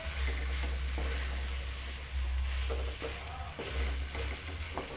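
A wooden spatula stirring and scraping flour-coated braised chicken in a non-stick wok, with a light sizzle as the last of the braising liquid cooks off dry, the stage before the chicken is fried. A steady low hum runs underneath.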